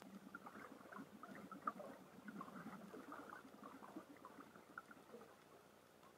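Faint gurgling of scuba divers' exhaled bubbles heard underwater, an irregular run of small bubbly pops that thins out in the last second or two.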